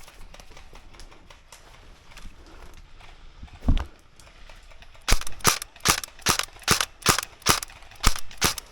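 Airsoft gun firing a quick string of about ten single shots, roughly three a second, starting about five seconds in. A single dull knock comes a little before them.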